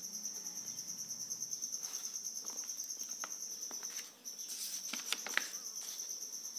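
Crickets chirping in a steady, high-pitched, rapidly pulsing trill that breaks off briefly about four seconds in. A few faint clicks come about five seconds in.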